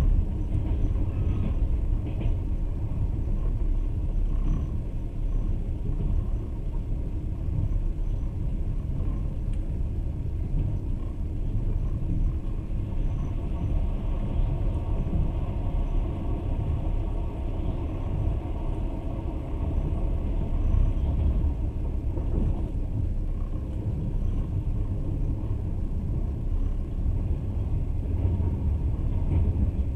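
Passenger train running along the track: a steady low rumble of the wheels on the rails, heard from inside the carriage.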